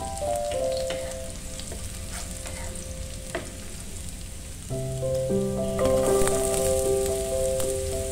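Sliced garlic sizzling in oil in a nonstick frying pan, stirred with a wooden spatula that now and then taps and scrapes the pan. Gentle background music with held keyboard notes plays along and gets louder about halfway through.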